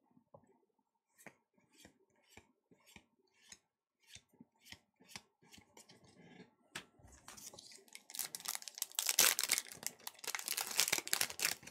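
Soft clicks about twice a second as trading cards are handled, then from about eight seconds in a foil Pokémon Evolutions booster pack wrapper is torn open with loud crinkling and tearing.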